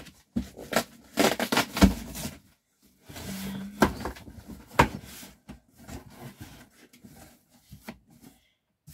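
Cardboard shipping box being opened and handled by hand: flaps rubbing and scraping, with scattered knocks and sharp clicks and one louder thump about two seconds in.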